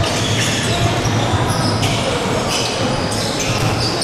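Live basketball game sound on a wooden court: the ball bouncing and sneakers squeaking on the floor, with players' voices calling out.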